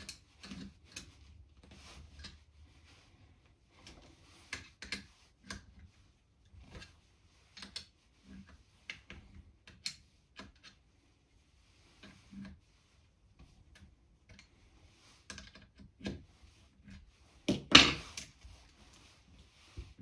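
Small metal hand tools clicking and clinking in irregular handling on a workbench, with one louder clatter near the end as a spanner is set down.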